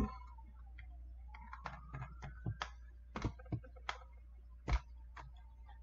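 Irregular, scattered clicks of a computer mouse and keyboard, about ten of them from a second and a half in, over a faint tone that dips and then rises in the background.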